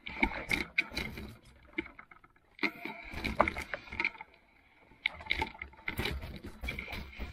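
Fat-tyre e-bike moving over a slippery, muddy track: three irregular bursts of knocks, rattles and wet squelching, with quieter gaps between them.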